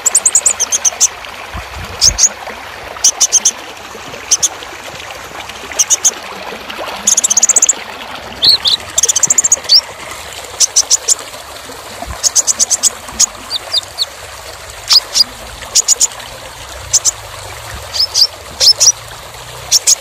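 Male Van Hasselt's sunbird ('kolibri ninja') singing: short bursts of very high, rapid, sharp notes, repeated every second or so, with a few lower down-slurred notes about halfway through. The song runs over a steady background hiss.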